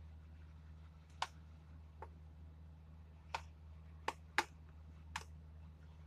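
Six short, sharp clicks and taps at irregular spacing as spice containers are handled, over a steady low hum.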